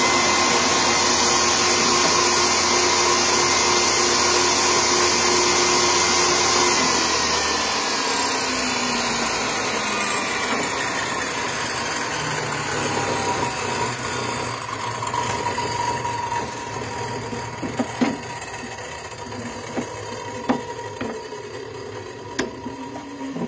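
Benchtop table saw running and cutting through cedar, a steady motor whine over the rasp of the blade; about seven seconds in it is switched off and the whine falls in pitch as the blade coasts down. A few light knocks of wood being handled on the saw table near the end.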